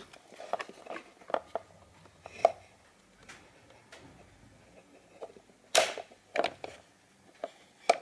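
Scattered light clicks and knocks of a hard plastic vacuum floor nozzle being handled against a cardboard box and coiled cable, with one sharper knock near the six-second mark.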